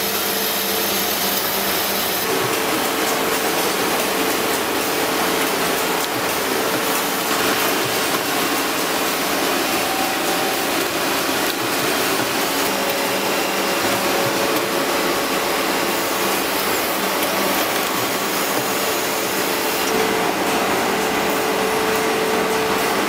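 Drill-bit production machinery running steadily: an even grinding hiss with a steady hum under it, continuing unbroken throughout.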